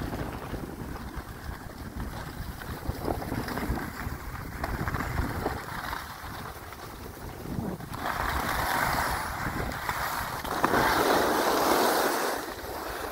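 Wind buffeting the microphone while skiing downhill, with skis hissing and scraping over groomed snow in two louder stretches in the second half.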